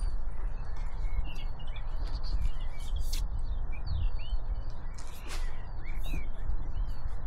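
Small birds chirping and calling in many quick, short chirps that rise and fall, over a steady low rumble, with a few sharp clicks.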